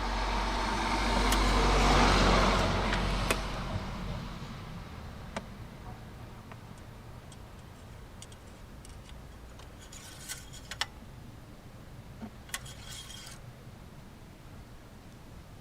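A road vehicle passing by, its noise rising to a peak about two seconds in and fading away over the next few seconds, followed by a few faint clicks and taps.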